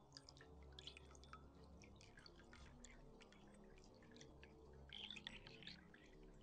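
Faint, irregular dripping of water, a scatter of small drips and trickles that briefly thicken about five seconds in, over a faint low steady hum.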